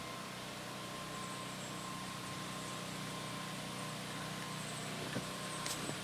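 A steady low engine hum under an even hiss, with a few faint clicks near the end.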